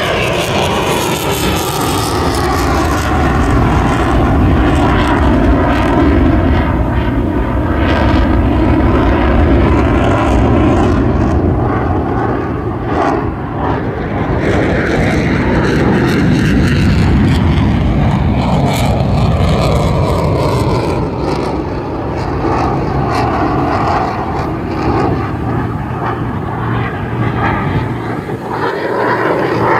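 Loud aircraft engine noise from a display plane flying past, its pitch sliding down and back up several times as it passes and turns.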